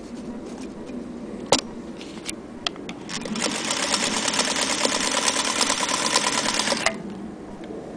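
Singer Featherweight 221K sewing machine stitching in a fast, even rhythm for about four seconds, starting about three seconds in and stopping abruptly. Before it there is a sharp click about a second and a half in and a few lighter clicks.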